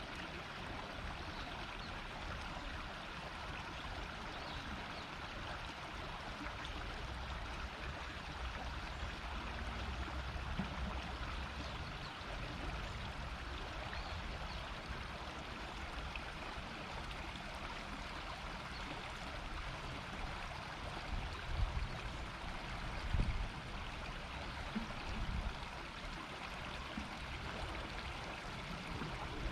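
Shallow river murmuring and babbling steadily, with a few short low rumbles about two-thirds of the way through.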